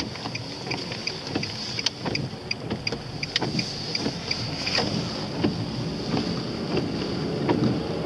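Car driving on a wet road, heard from inside the cabin: steady tyre and road noise with scattered light ticks and clicks.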